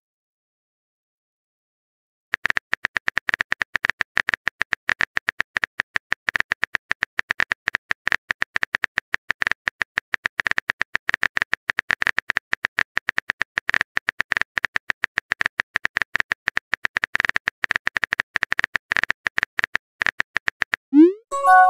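Phone keyboard typing sound effect: a rapid, irregular stream of key-tap clicks as a text message is typed out. Near the end it stops and a short rising swoop with a bright chime plays as the message is sent.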